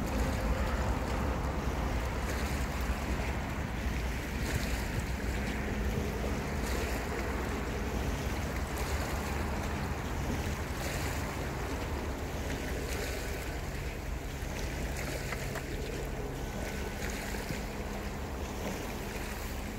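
Steady wind noise on the microphone over the wash of small waves against a rocky shore, with a faint steady low hum underneath.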